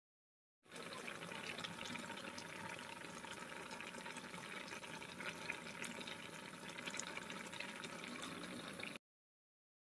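A fish stew boiling hard in an aluminium pot: a steady bubbling hiss dotted with small crackles and pops. It starts abruptly under a second in and cuts off sharply about a second before the end.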